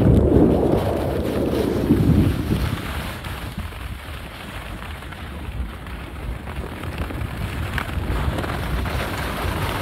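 Wind rushing over the microphone of a camera carried by a downhill skier, with the hiss of skis sliding on snow; loudest in the first couple of seconds, then easing off.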